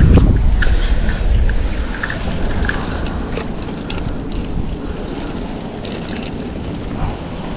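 Wind buffeting the microphone, strongest in the first second and then easing, over the wash of water against the rocks, with a few faint clicks.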